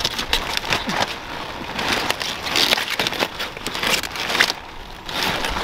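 Cauliflower leaves and fleshy leaf stalks crackling and snapping as hands twist and pull at a large head still on its plant, a string of irregular crisp cracks and rustles. The stem is tough and not yet giving way.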